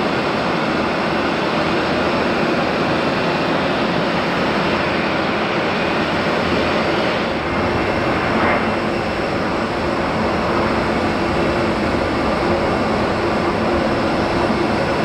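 Jet airliner engines running: a loud, steady rushing noise, taxiing and then at takeoff power, with a brief change about seven seconds in.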